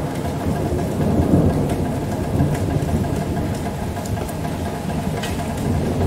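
Deep rolling rumble of thunder, swelling about a second in and carrying on, over a rainstorm.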